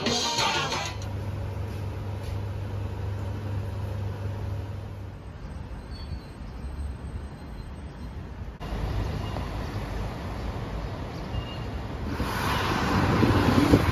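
Dance music cuts off about a second in, giving way to the rumble of city traffic heard from a rooftop. The rumble grows louder and noisier near the end, with wind on the microphone.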